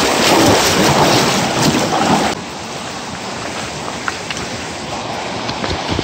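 Rushing water of a shallow mountain stream, loud and splashy at first, then dropping suddenly about two seconds in to a quieter, steady rush.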